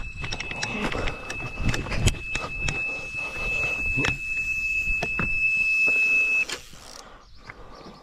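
Carp bite alarm sounding one continuous high tone as a fish runs with the bait, over a rapid scatter of clicks and knocks; the tone stops abruptly about six and a half seconds in as the rod is picked up.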